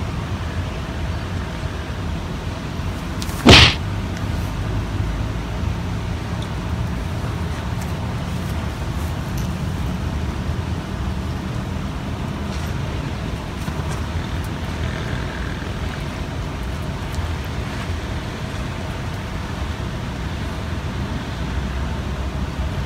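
Steady low rumble with a faint hiss above it, broken about three and a half seconds in by one sharp, loud knock.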